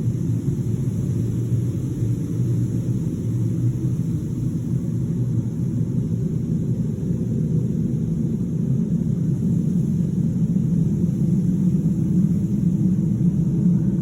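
A steady low rumble of unidentified origin, the 'strange sound' being recorded, growing slightly louder in the second half.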